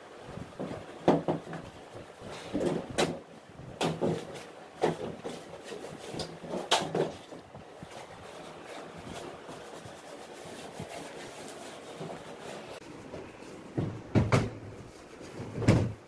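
Hard plastic parts of a split air conditioner's indoor unit knocking and clattering as its front panel and grille frame are handled: a run of sharp knocks over the first seven seconds, a quieter stretch, then two heavier thumps near the end.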